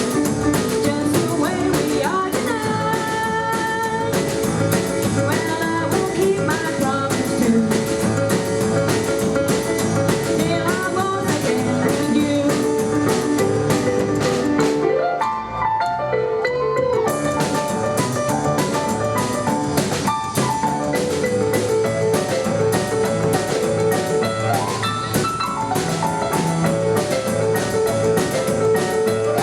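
Live 1950s rock 'n' roll band playing an instrumental break: keyboard over a steady drum-kit beat and double bass. The high end thins out briefly about halfway through before the full band comes back in.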